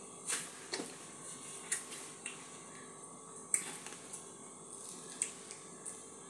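Small sharp crackles and crunches, about six of them spaced irregularly, from a pomegranate being eaten close to the microphone, over a faint steady hum.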